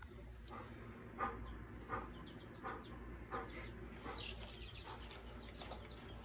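Two-week-old chicks peeping faintly in a brooder, thin high peeps that cluster about two-thirds of the way through. A soft, short sound repeats about every three-quarters of a second throughout.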